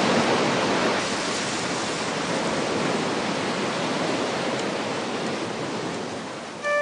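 Steady rushing, surf-like noise, as of sea waves, slowly fading. Pitched music notes come in right at the end.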